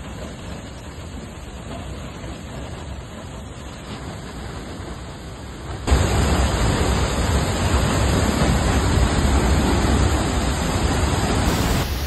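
Steady rush of water from a waterfall plunging into its pool, becoming suddenly louder about halfway through.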